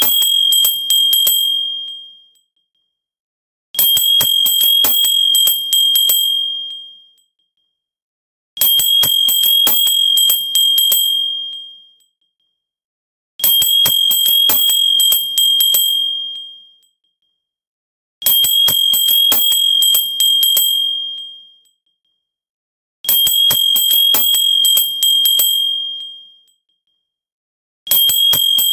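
A clear, high-pitched bell rung in rapid trills of quick strikes. Each trill lasts about two and a half seconds and then rings away, and a new trill starts about every five seconds, six times over.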